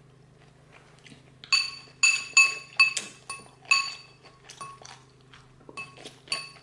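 Metal fork clinking against a salad bowl, each strike ringing briefly: a quick run of clinks starting about a second and a half in, a short lull, then a few more near the end.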